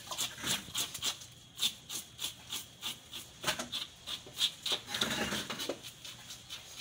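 Knife scraping the scales off a surgeonfish, a quick run of short rasping strokes several a second. A louder, longer sound comes in about three and a half seconds in and again around five seconds.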